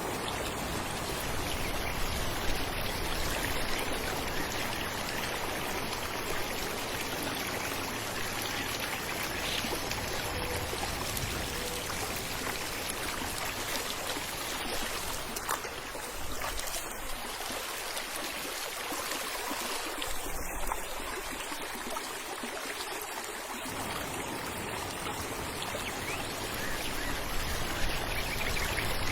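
Falling water running over rocks in a stream, a steady, even splashing hiss.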